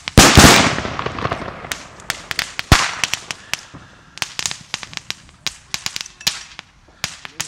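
Fireworks going off: a loud bang just after the start with a long fading crackling tail, then scattered sharp firecracker cracks, one louder crack just under three seconds in.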